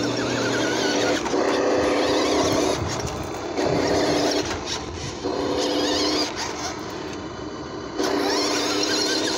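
Electric drive motor and gearbox of a New Bright 1:6-scale RC Ford F-150 toy truck whining as it drives across grass, in repeated bursts of a second or so as the throttle is worked on and off.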